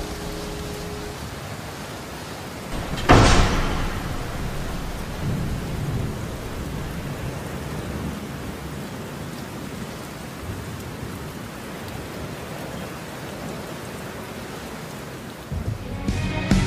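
Steady rain with a single loud crack of thunder about three seconds in that dies away over about a second.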